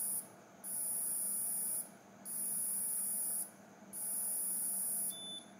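A very high-pitched electronic whine from the AURA Strap, pulsing on for about a second with short gaps between, three times over, then a short, lower beep near the end. The strap is taking a bioimpedance body-composition measurement through a finger pressed on its electrode.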